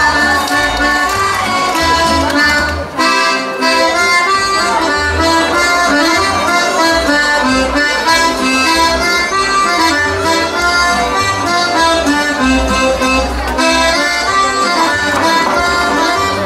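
Lively Slovak folk dance music played for a stage dance, with a pulsing bass beat and a brief break about three seconds in.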